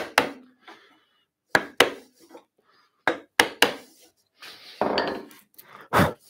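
Mallet blows on an 8 mm mortice chisel, driving it into the wood to chop a mortice. About seven sharp knocks come mostly in quick pairs, then a short scraping rustle and one heavier knock near the end.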